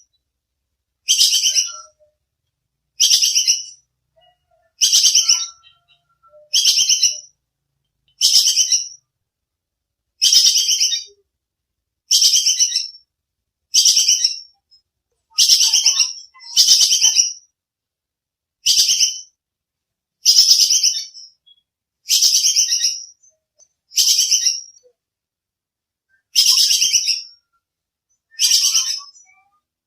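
Tupai kekes squirrel giving its sharp, rapid chattering call over and over, about once every two seconds, each call a short burst of quick pulses.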